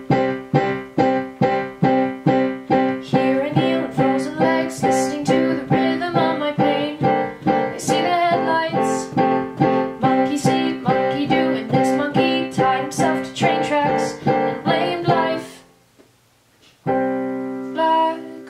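Piano chords played on a keyboard in a steady repeated pattern, about two or three strikes a second. They stop about fifteen seconds in, and after a short pause a new chord is struck and held.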